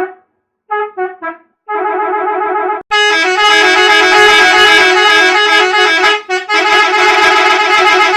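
Musical bus horn playing a repeating multi-note tune in several edited versions, one after another. A few short clipped notes come about a second in, then the tune again. From about three seconds in a louder, harsher distorted version plays, and after a brief break near six seconds another version follows.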